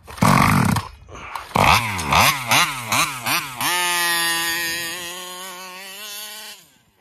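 RC car's Taylor 35cc reed-valve two-stroke engine: a loud burst of engine noise, then several quick surges of revs up and down, then a steady high note that slowly fades and cuts off near the end. The uneven running is the flutter the owner blames on a faulty carburetor.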